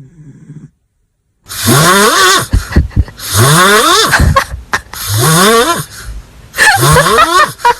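A sleeping dog snoring loudly. There are four long snores, one every one and a half to two seconds, each rising in pitch as it goes, and a fifth begins at the end.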